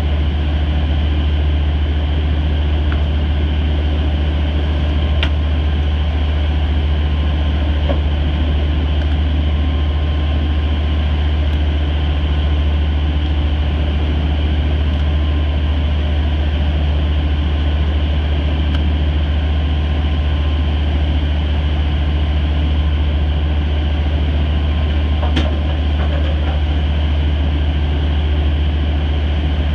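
Fishing vessel's engine droning steadily, a loud low hum that does not change.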